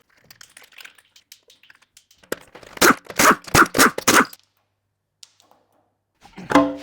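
A quick run of loud, sharp knocks, about eight in two seconds, after a few faint clicks.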